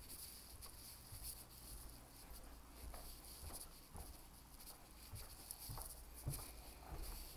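Faint, soft footsteps on carpet with light rustling and handling of a handheld phone, as irregular muffled thumps and small clicks over a faint steady hiss.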